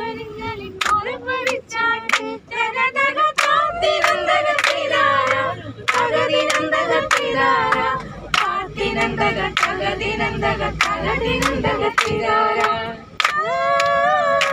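A group of women singing a song together, with hand claps keeping time about once a second.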